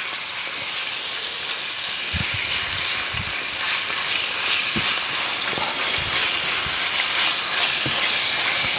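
Pieces of chicken breast sizzling in hot oil in a frying pan as they are sealed, with a steady hiss that grows slightly louder. A spatula stirring them knocks softly against the pan a few times.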